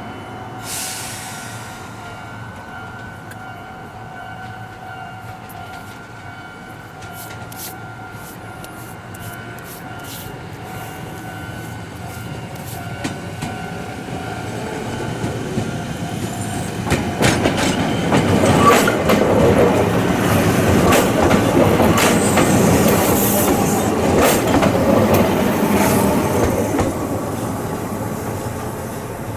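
Ohmi Railway electric train, set 810F, pulling out and passing close by. It grows steadily louder, runs past with a rapid clatter of wheels clicking over rail joints and points from about seventeen seconds in, and fades near the end.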